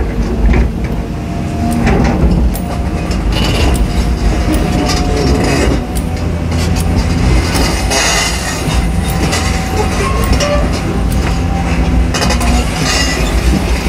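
Caterpillar 320D excavator's six-cylinder diesel engine running under load, heard from inside the cab, with a steady hydraulic whine and irregular clanks and rattles as the bucket digs into the sand face. There are bursts of gritty hiss about eight seconds in and again near the end.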